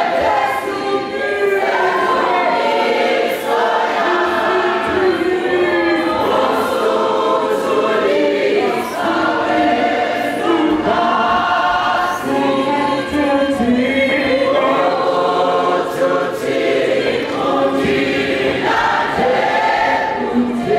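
A choir of men and women singing a gospel hymn, led by a man singing into a microphone.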